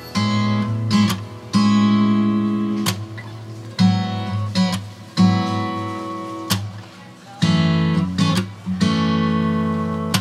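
Background music: an acoustic guitar strumming chords. Each chord is struck and left to ring out before the next.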